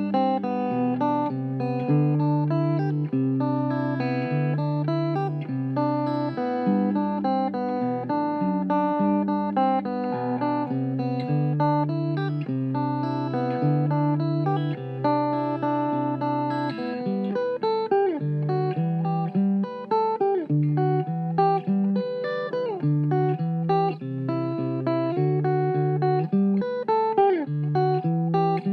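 Outro background music led by plucked guitar over a bass line, with sliding guitar notes in the second half.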